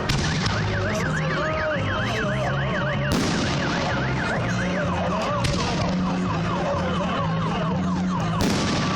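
Car alarm sounding: a quick rising-and-falling warble that switches partway through to a repeated falling sweep, the cycling tones of an alarm set off by fireworks bangs. Sharp bangs come about three seconds in and again near the end.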